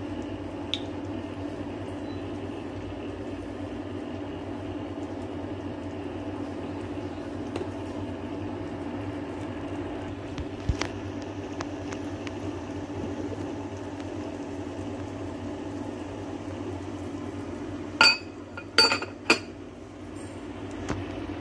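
A glass pot lid clinks three times in quick succession as it is set onto a ceramic soup pot near the end, over a steady low hum.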